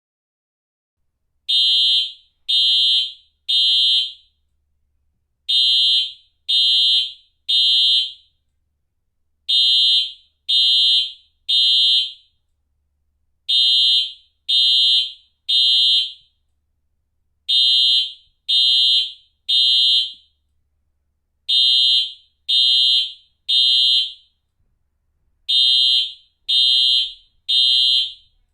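Simplex commercial fire alarm sounding the temporal-three evacuation pattern. Three short, high-pitched blasts of about half a second each, then a pause, repeating roughly every four seconds. It starts about a second and a half in.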